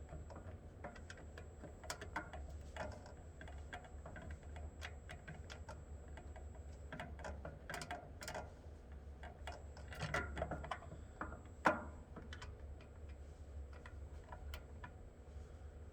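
Irregular light clicks and taps of small parts being handled during hand work on wiring and a switch box, with one sharper tap about two-thirds of the way through, over a steady low hum.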